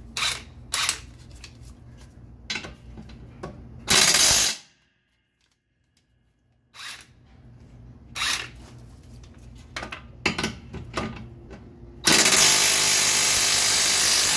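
Impact wrench hammering on the nut of the strut's lower mounting bolt: a short burst about four seconds in and a longer run of about two and a half seconds near the end, with light clanks of tools between. The nut is overtightened, well past its 116 ft-lb spec, and does not break loose.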